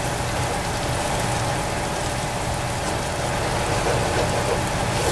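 Eggs and diced vegetables sizzling in bacon grease in a pot as they are stirred and scrambled: a steady frying hiss.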